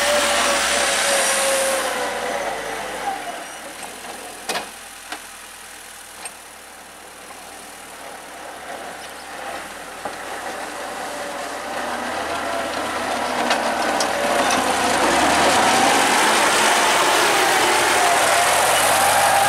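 Engine of a homemade tractor running as it moves past and away, fading to faint for several seconds with a few sharp knocks, then growing loud again close by near the end.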